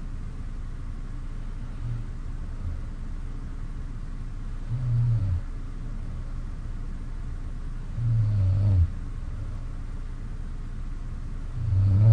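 A person snoring in their sleep: three low snores about three and a half seconds apart, each under a second long and louder than the last, over a steady low hum.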